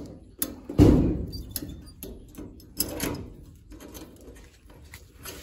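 Padlock and steel door hasp being handled: a series of metallic clicks and knocks as the padlock is fitted through the hasp and locked with a key. Two louder clanks come about a second in and about three seconds in.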